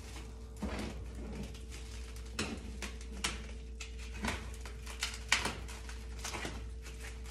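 Plastic stretch wrap crinkling as it is snipped and pulled off a cardboard box with scissors: irregular crackles and snips over a steady hum.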